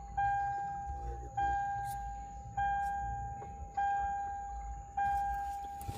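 A Toyota's in-cabin warning chime dinging over and over at an even pace, five single-tone dings about 1.2 seconds apart, each fading before the next.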